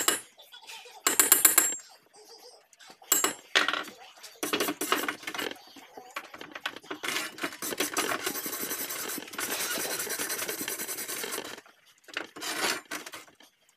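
Knocks and scraping of a hand tool on steel. About eight seconds in comes three or four seconds of steady crackling, typical of a flux-core wire welder laying a bead.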